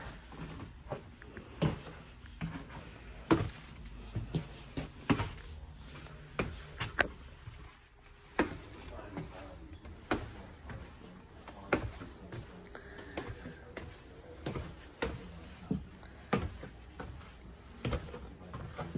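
Footsteps going down a staircase and along a hardwood floor, a short knock about every second.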